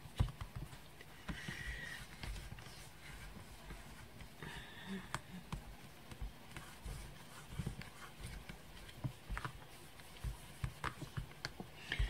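Hands pressing and rubbing over a Stamparatus stamping platform's plastic plate to push the stamp onto card, with a sharp knock just after the start, then scattered light taps and rustling.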